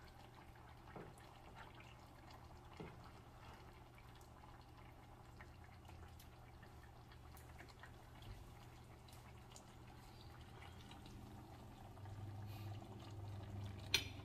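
A spoon ladling curry gravy over fish in a skillet: faint liquid dripping and small spoon taps against the pan. Near the end a glass pot lid clinks down onto the pan, the loudest sound, over a low hum that grows a little louder.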